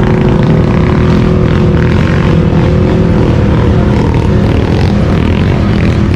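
Can-Am XMR 850 ATV's V-twin engine running hard through an aftermarket slip-on exhaust, loud and holding a fairly steady pitch.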